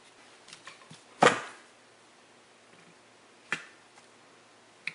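Sharp clicks of small hand tools and an opened multimeter circuit board being handled. A few faint ticks come first, then one loud click with a short ring about a second in, another click midway and a small one at the end.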